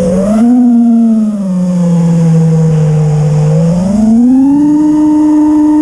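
FPV racing quadcopter's brushless motors (T-Motor F40 III, 2600 Kv) whining in flight, the pitch following the throttle: it falls and settles low, then climbs about four seconds in and holds high.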